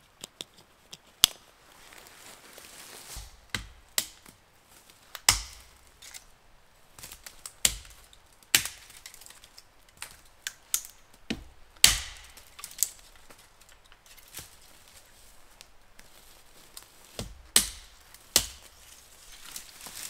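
Dry dead branches cracking and snapping, a series of sharp single cracks spaced irregularly about a second or two apart.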